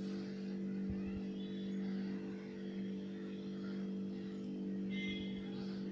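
Electric hand mixer running with a steady hum as its beaters whip oil into egg-and-sugar sponge cake batter.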